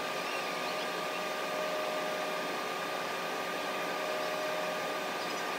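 Steady machine hum with a constant whine from a DIY laser powder-bed metal 3D printer running a print.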